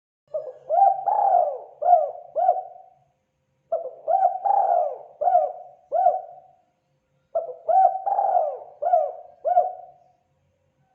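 Spotted dove (terkukur) cooing its song: three phrases of about five rising-and-falling coos each, a short pause between phrases.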